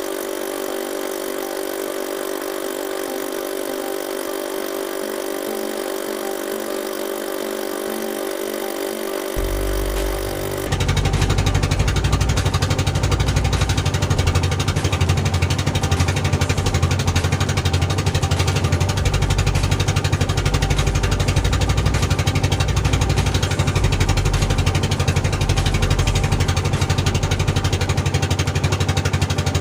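Boat engine running steadily under way. About ten seconds in, the sound cuts suddenly to a louder, deeper engine rumble.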